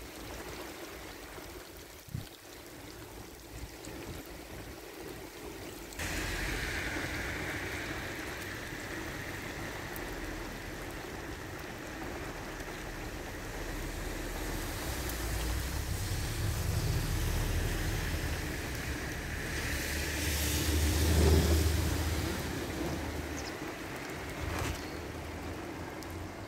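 Wind and rain over open flood water, with wind buffeting the microphone. It gets louder suddenly about six seconds in and swells again about two-thirds of the way through.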